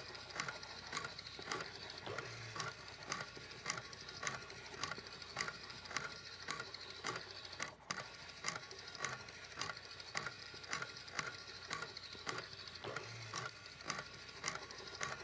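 Regular clicking, about two clicks a second, over a faint crackling hiss.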